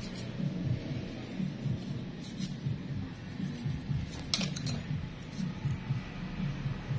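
A few sharp metallic clicks of a nail nipper snipping toenail, the loudest cluster a little past halfway, over a steady low pulsing background.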